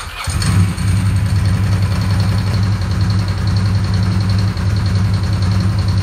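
Ducati 916's 90° V-twin engine catching just after the start and then idling steadily.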